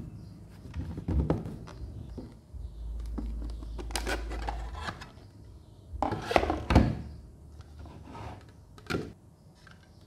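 Handling noises of a box and small plastic parts: irregular thunks, knocks, rubbing and scraping, loudest a little past the middle, with a sharp knock near the end.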